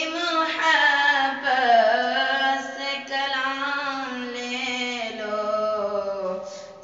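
A boy's voice singing an Urdu naat unaccompanied, drawing out long notes that slide up and down in pitch.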